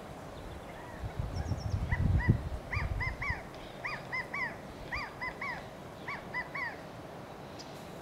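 Male California quail giving its three-note "chi-ca-go" contact call, repeated about once a second for several calls. A low rumble is loudest in the first half.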